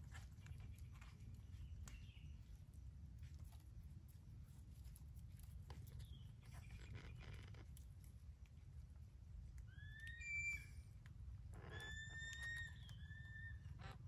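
Low rumble of wind on the microphone with faint rustling, then short whistled parrot calls in two groups, the first about ten seconds in and a longer run of level calls a couple of seconds later.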